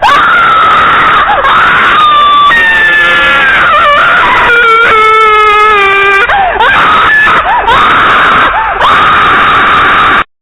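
A loud, harshly distorted high-pitched cry like a screaming voice, its pitch sliding up and down. It starts suddenly and cuts off abruptly about ten seconds in.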